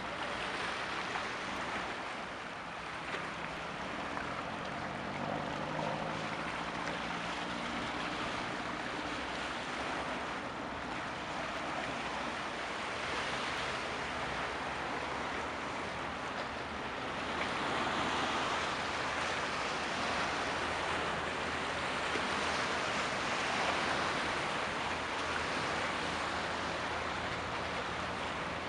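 Steady rushing outdoor noise of wind and water, with a faint low hum of an engine for a few seconds a little way in.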